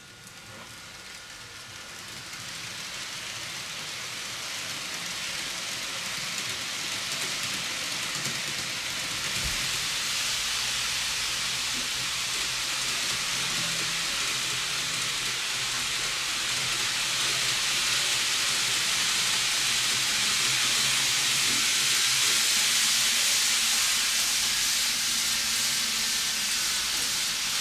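Kato N-gauge 0 Series Shinkansen model train running on the layout track: a steady high hiss of the wheels rolling on the rails with a faint low motor hum, growing gradually louder over the first several seconds.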